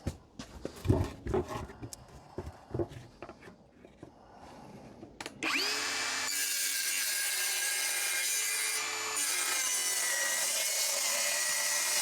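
Knocks and clatter of handling at first, then about five and a half seconds in a Mellif 18-volt brushless cordless circular saw whines up to speed and runs steadily, cutting through wood along a guide rail.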